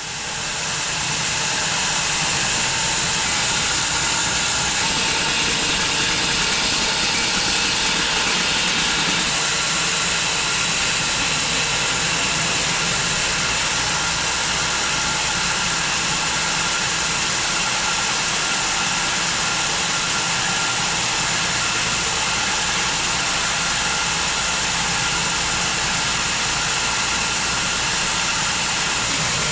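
Home-built wide bandsaw mill running steadily as it saws through an elm log, a loud, even machine drone with a strong hiss. It comes up from quiet over the first second.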